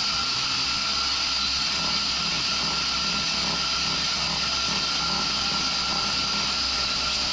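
Home-made CNC milling machine with a 10 mm carbide end mill spinning at 4000 rpm, boring a pocket in an aluminium block: a steady machining whine over a constant high hiss.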